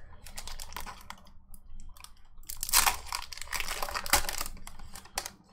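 Foil wrapper of a Pokémon booster pack crinkling and tearing as it is opened by hand, loudest about three to four seconds in.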